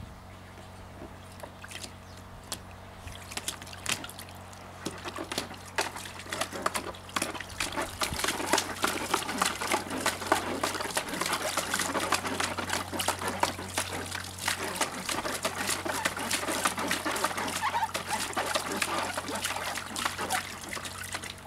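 A black Labrador puppy pawing and splashing water in a plastic paddling pool. The splashing starts after a few quieter seconds and grows busier and more continuous.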